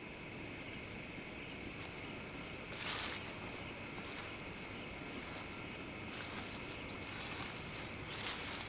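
Footsteps crunching through dry leaf litter at night, a few scattered steps with the clearest about three seconds in and near the end, over a steady high-pitched chorus of night insects.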